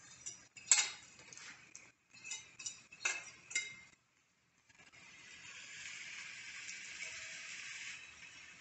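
A metal utensil clinks and scrapes against a ceramic bowl as sliced apples are scraped into a cast-iron skillet. From about five seconds in comes a steady sizzle of the apples frying in the hot pan.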